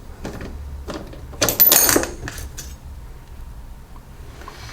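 Metal tools and small parts clinking and clattering on a workbench, with a few light clicks and a louder clatter with a short metallic ring about a second and a half in.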